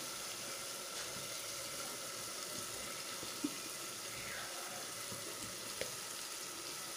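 Onion-tomato masala frying in oil in a clay pot, a steady soft sizzle, with a couple of faint clicks.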